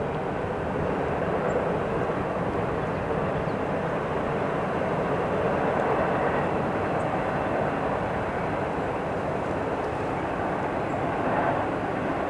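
Freight train's autorack cars rolling across a steel trestle bridge, a steady rumble of wheels on the rails and the steel structure.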